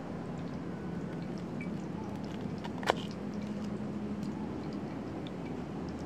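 Wood campfire crackling: scattered small pops and ticks over a steady background hiss, with one sharp snap about halfway through.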